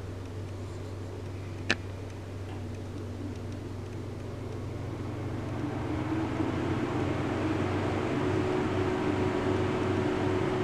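Steady low mechanical hum with one sharp click about two seconds in; from about six seconds a louder rushing noise with a steady tone builds up and holds.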